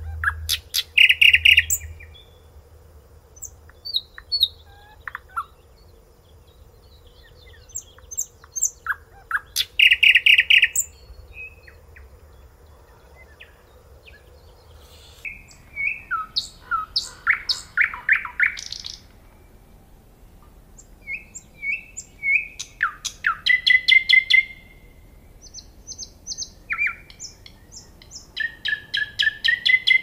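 Nightingale singing in separate phrases with short pauses between them. The phrases mix fast rattling series of repeated notes, sharp clicks and short whistled notes.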